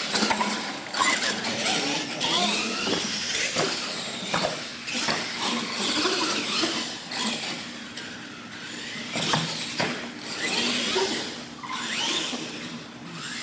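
R/C monster truck driving hard on a concrete floor: its motor and gears whine, rising and falling with the throttle, with tyres squealing and several sharp knocks as it lands and bumps.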